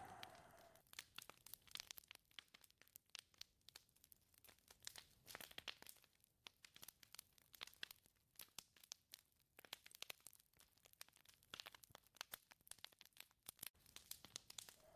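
Faint, irregular crackling and ticking of a wood fire, with the wind noise dying away in the first second.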